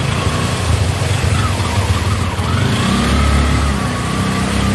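CNG auto-rickshaw engine running, a steady low drone that grows stronger and steadier about three seconds in.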